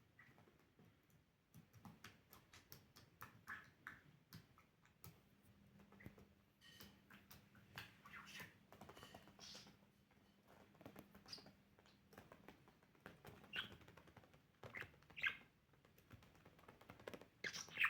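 Budgerigar chirping and chattering quietly in short scattered calls, among many small clicks and taps, with a louder chirp near the end.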